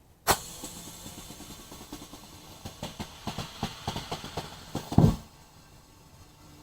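Compressed air hissing into a motorcycle front tire as it is inflated, starting suddenly and cutting off after about five seconds. A run of sharp pops in the second half and a louder thump just before the air stops come as the freshly sealed tire bead seats back onto the rim.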